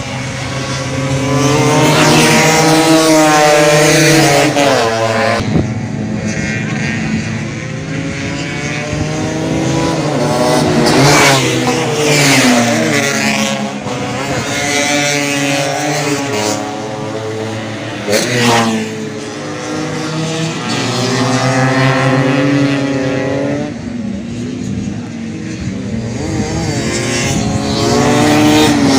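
Tuned two-stroke Vespa racing scooter engines revving hard, their pitch climbing and dropping again and again as they accelerate and race past.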